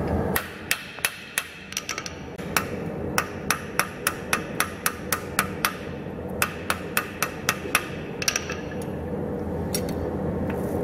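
Hand hammer striking a red-hot steel knife blade on an anvil while forging the blade. A run of sharp metallic blows comes about three a second with a couple of short breaks, stops about eight seconds in, and is followed by a few lighter taps.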